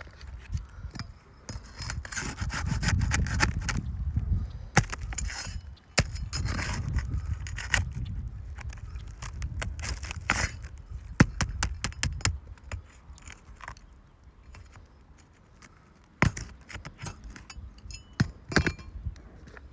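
Scraping and rubbing on asphalt roof shingles, with sharp clicks and knocks, as a sealed 3-tab shingle is worked loose for a repair.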